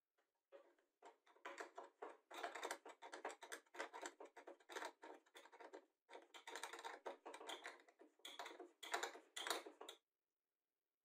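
Faint runs of short scrapes and clicks as a bolt through a slotted plywood clamp block is tightened with an open-end wrench and the wooden parts are handled, stopping about a second before the end.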